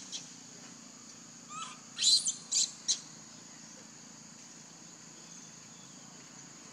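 Short, high-pitched chirping calls: a faint one, then three loud, sharp chirps in quick succession about two seconds in, over a steady, high-pitched hum.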